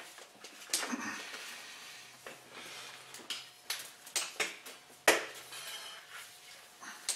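A heavy rock wrapped in a towel being dragged across a concrete floor: scraping and rubbing with irregular knocks and clicks, the loudest a sharp knock about five seconds in.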